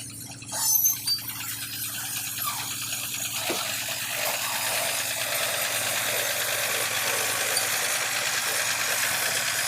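Heavy diesel engine running steadily, with a few knocks about a second in, then a rattling noise building up and growing louder.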